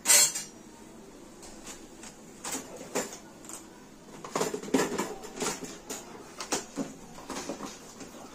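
Kitchen counter being wiped and scrubbed by hand: a sharp scrape right at the start, then uneven scratchy rubbing strokes and light taps.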